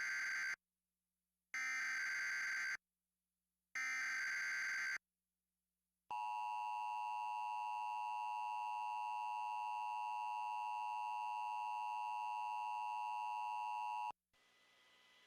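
Emergency Alert System activation for a tornado watch. Three SAME header data bursts, each about a second long with a second's gap, the first already under way; then the steady attention tone, held for about eight seconds before it cuts off.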